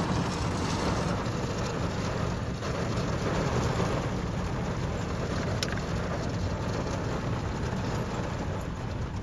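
Rain falling steadily on a car's roof, heard from inside the cabin as an even, unbroken hiss.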